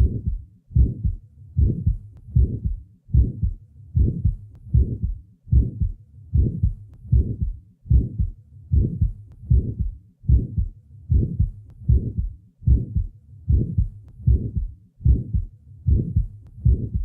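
Heart sounds recorded at the left lateral sternal border, beating evenly at about 80 a minute. Each first heart sound is followed by a short early systolic murmur that fades out by mid-systole. This is the murmur of a small muscular ventricular septal defect, which closes as the ventricle contracts.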